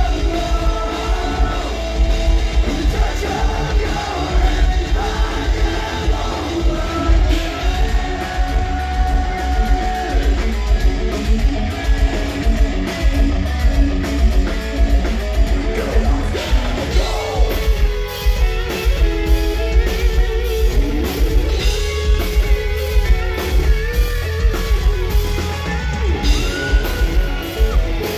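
Live metalcore band playing: distorted electric guitars, bass and a pounding drum kit under a singer's vocals.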